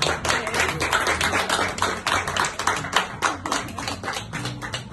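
Applause from a small group: quick, uneven handclaps that thin out a little near the end.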